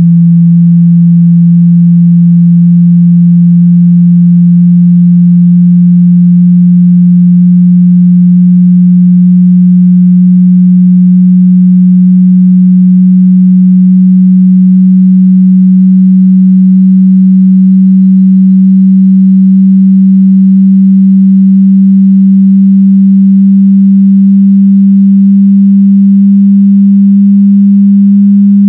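A loud, low sine test tone from a car-audio sound-quality judging CD, gliding very slowly and slightly upward in pitch.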